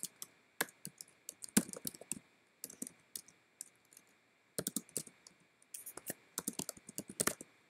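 Typing on a computer keyboard: irregular key clicks, with a short pause about halfway through and then a quicker run of keystrokes.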